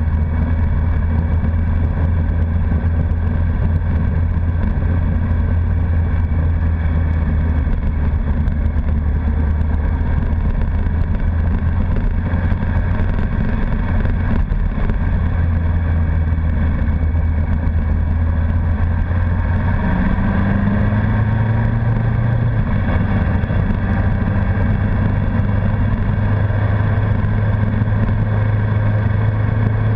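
Honda CBR1100XX Blackbird's inline-four engine running at a steady cruise while riding. About twenty seconds in the engine note rises and then holds at a higher pitch as the bike picks up speed.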